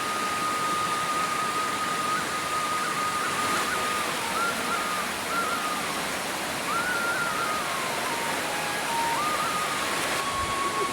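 Steady rushing of a stream or waterfall, with a faint slow melody over it: one long high note held for about four seconds, then shorter notes stepping up and down.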